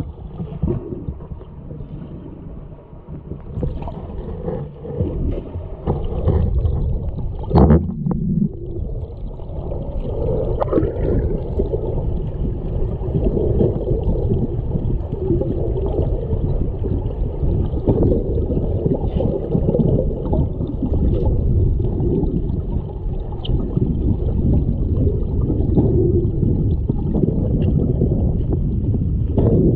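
Muffled underwater noise in a swimming pool: a steady low rush and gurgle of water. About eight seconds in there is a sharp knock followed by a short low hum, and soon after a brief rising squeal.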